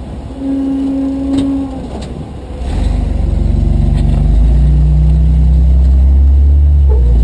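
Off-road vehicle's engine revving up about two and a half seconds in, then held loud and steady at raised revs.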